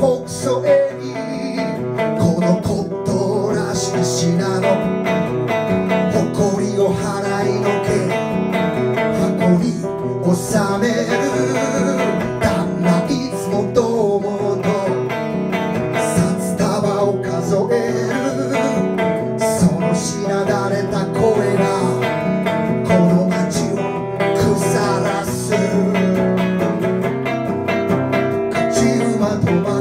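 Live solo song: a man singing while strumming a hollow-body electric guitar.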